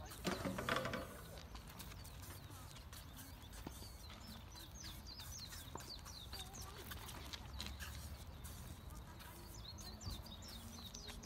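A BMX flatland bike working on asphalt: its tyres scuff and its wheels and frame knock lightly and irregularly as the rider pivots and balances, with a louder scuff about half a second in. Birds chirp in short, high, falling notes throughout.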